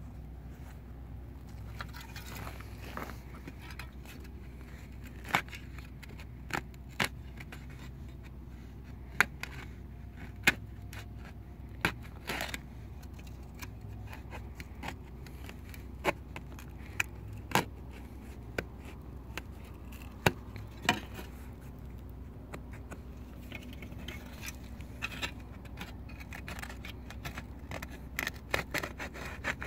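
A rusty piece of metal scraped against the leather of a boot to distress it, in scattered sharp scrapes and clicks, turning into quick repeated scraping near the end.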